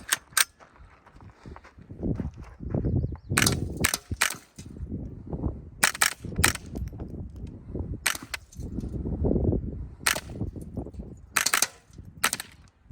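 Suppressed .22LR rifle shots from an AR with a .22LR conversion kit, fitted with a Nelson Precision Little Spoon silencer and firing Winchester Super Suppressed subsonic ammunition. About ten short, sharp reports come at an uneven pace, roughly one every second or two.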